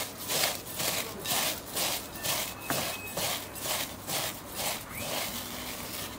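Nacho cheese tortilla chips crunching as they are crushed by hand in a bowl, an even crackle about three times a second.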